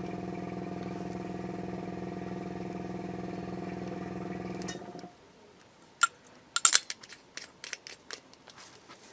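Small airbrush compressor running with a steady hum that cuts off about five seconds in. It is followed by a run of sharp clicks and knocks, the loudest just after six seconds.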